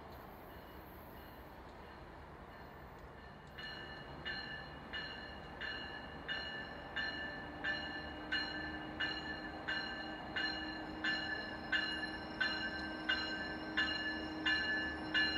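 A railway bell ringing steadily at about one and a half strokes a second, starting about four seconds in. A train's low steady hum joins it from about seven seconds.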